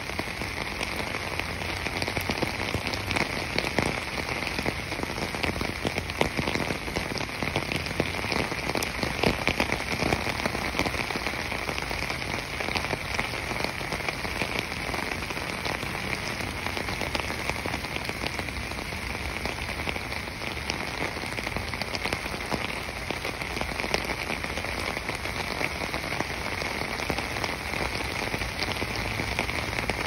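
Steady, dense patter of water drops, many small drops striking surfaces without a break.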